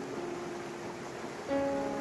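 Background music of held notes, with a louder new chord coming in about one and a half seconds in.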